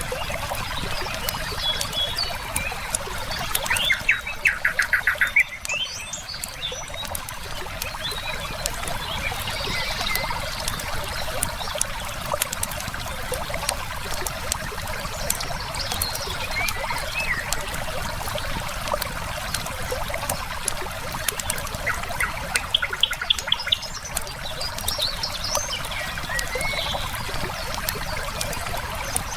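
River water flowing steadily, with a campfire crackling and small birds chirping. A fast bird trill of rapid, evenly spaced notes sounds about four seconds in and again about three quarters of the way through.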